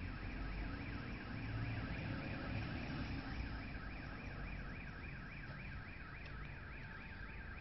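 Electronic car alarm sounding, its pitch sweeping up and down about three times a second, steady throughout, with a low rumble under it in the first few seconds.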